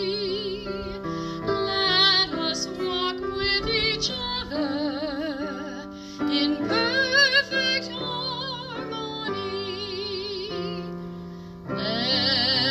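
A woman singing a slow hymn with vibrato, amplified through a microphone, over sustained keyboard chords.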